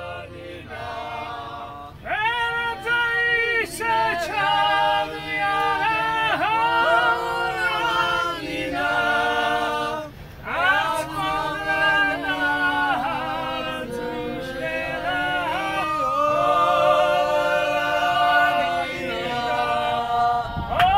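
A group of voices singing a song together, unaccompanied, in Georgian folk style. It starts about two seconds in and breaks off briefly about ten seconds in.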